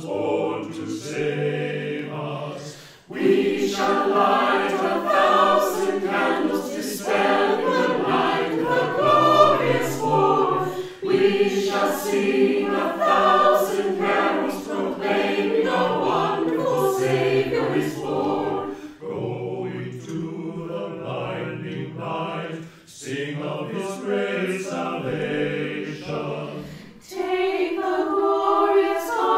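Mixed choir of men's and women's voices singing a carol, assembled as a virtual choir. A few men's voices sing the opening, then the full choir comes in about three seconds in, singing in phrases with short pauses between them.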